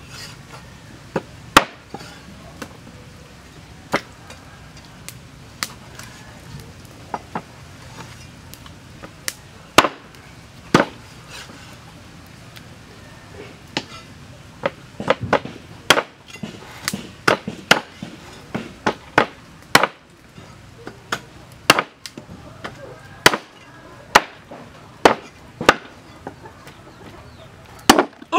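Meat cleaver chopping pig leg on a round wooden chopping block: sharp single chops, spaced a second or more apart at first, then coming faster in runs about halfway through.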